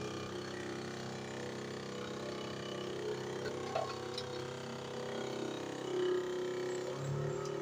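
Steady hum of a small motor, with a few light knocks.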